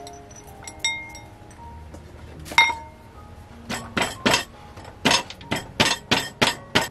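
Wooden pestle crushing green peppercorns in a ceramic bowl: a sharp clink about two and a half seconds in, then steady pounding strokes about three a second through the second half.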